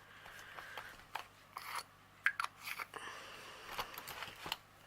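Small plastic bead-storage bottles being handled and checked one by one: scattered light plastic clicks with brief scratchy rubbing.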